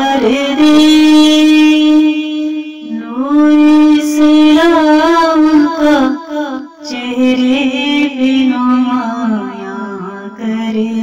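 Music: a song whose singer holds long notes that waver in pitch, phrase after phrase with short breaks between them.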